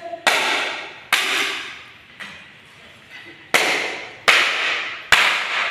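Broken ceiling board pieces crashing onto a tiled floor littered with debris: six sharp crashes at roughly one-second intervals, each with a short clattering tail.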